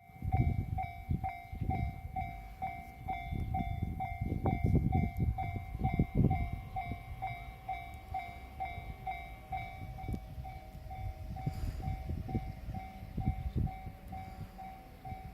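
Electronic warning bell of a Japanese railway level crossing ringing about twice a second. Under it a train rumbles past with knocking from the wheels, loudest in the first six seconds.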